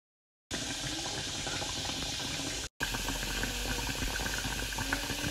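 Food cooking in hot liquid on the stove: a steady bubbling hiss with many small pops and crackles. It starts abruptly about half a second in and drops out for a moment near the middle.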